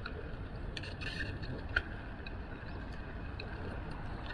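Steady low rumble of wind and tyre noise from a moving bicycle, with a few light clicks and rattles, the sharpest just under two seconds in.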